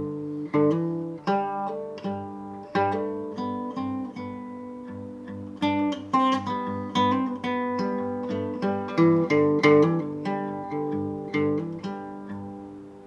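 Acoustic guitar playing a short, gentle passage of plucked chords, each one left ringing; the last chord fades out near the end.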